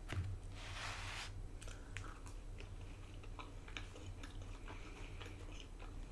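Faint, close-up chewing and wet mouth sounds of a person eating, with small clicks scattered through and a short breathy hiss about a second in.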